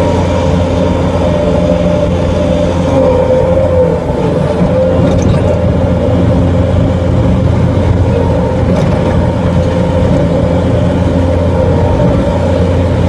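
Bobcat skid-steer loader's engine running steadily at working speed, heard from inside the cab, with a higher whine that wavers slightly in pitch.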